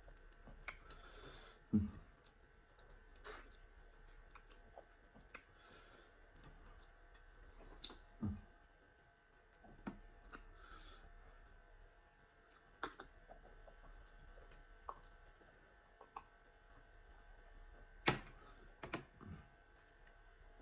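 Quiet, scattered eating sounds: irregular soft mouth clicks and smacks with a few dull knocks, as starch and pepper soup is eaten, plus a few short breathy hisses.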